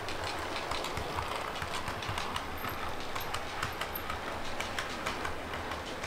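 OO gauge model diesel trains running on the layout, their wheels clicking over the rail joints several times a second in an uneven patter.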